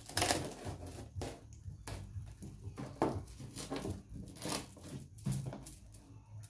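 Plastic cling film crinkling and crackling as it is stretched and pressed around a plastic tub, in irregular crackles, the loudest just after the start.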